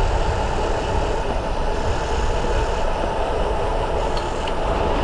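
Wind rushing steadily over the microphone of a camera mounted on a mountain bike descending fast on an asphalt road, a dense low rumble.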